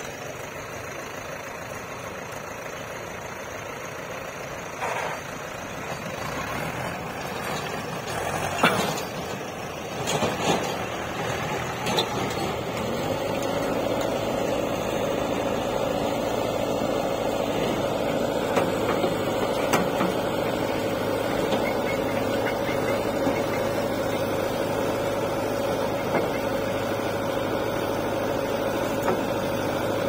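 JCB 3DX backhoe loader's diesel engine running while its backhoe arm digs and loads soil, with a few sharp knocks from the bucket and arm. A little before halfway the engine grows louder and settles into a steady, higher note under load.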